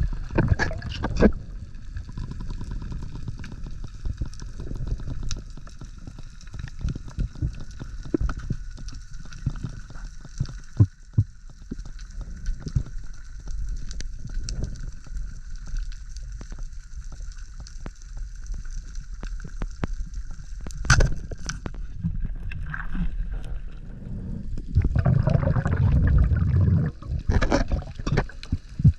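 Underwater sound picked up by a diver's head-mounted action camera: a low rumble of water movement with scattered sharp clicks and crackles. A louder rush of water and bubble noise comes in near the end.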